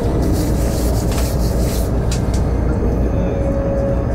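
Steady rumble of a train running at speed, heard from inside the carriage, with short rushes of hiss in the first half.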